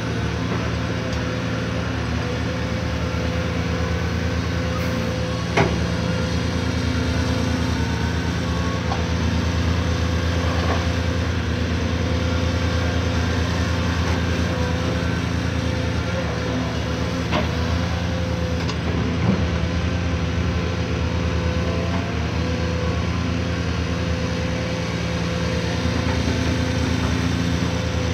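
Cat 340D hydraulic excavator's diesel engine running steadily under load as the machine swings and lifts its loaded bucket, with a dump truck's diesel idling alongside. A few brief knocks stand out, the sharpest about five seconds in.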